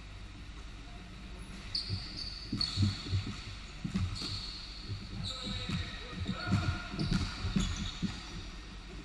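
Basketball bouncing on a hardwood gym floor, irregular thumps ringing in the large hall, with short high squeaks of sneakers on the court.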